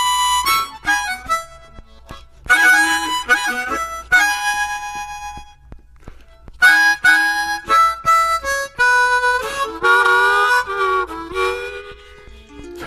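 Blues harmonica playing an instrumental passage in a recorded blues song, in short bent phrases separated by brief pauses.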